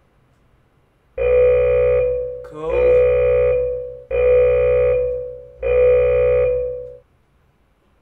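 Workout interval timer sounding its end-of-round alarm: four long pitched beeps, each about a second and a half long and fading away, at even spacing.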